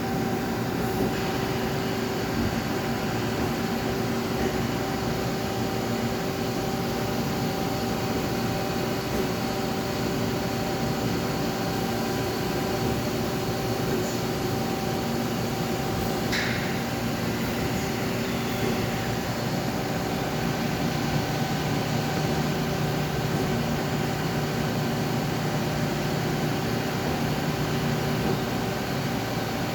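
Steady hum of running machinery with several steady tones over an even whirring noise, with one brief high chirp midway. A lower hum comes in about two-thirds of the way through and drops out shortly before the end.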